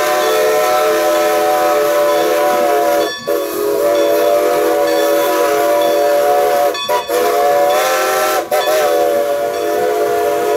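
Steam whistle of 2-10-0 Decapod #90 blowing long and loud as a chord of several steady notes, broken by three brief gaps, about three, seven and eight and a half seconds in.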